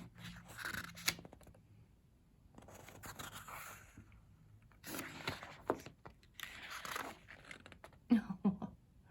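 Pages of a paper photobook being turned and handled: about five separate bursts of paper rustling, with a few sharp knocks about eight seconds in.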